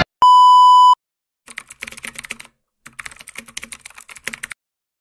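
A loud, steady beep of under a second, then fast computer-keyboard typing clicks in two runs, the first about a second long and the second nearly two seconds.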